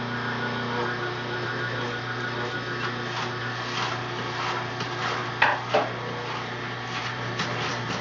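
Omega masticating juicer running, its slow auger motor humming steadily while cilantro is fed in and pressed, with rubbing and creaking of the greens in the feed chute and a brief louder sound about five and a half seconds in.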